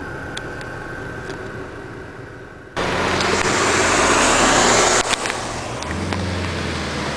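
Low vehicle engine rumble. About three seconds in it cuts abruptly to a loud, even rushing hiss lasting about two seconds, then to a steady low engine hum heard from inside a car.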